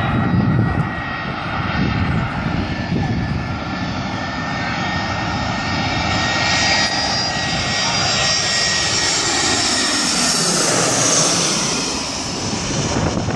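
Twin-engine jet airliner on final approach, passing low overhead with a steady jet roar and whine. Its high hiss grows to a peak about ten to eleven seconds in, and its tones slide down in pitch as it goes over. There is wind rumble on the microphone near the start.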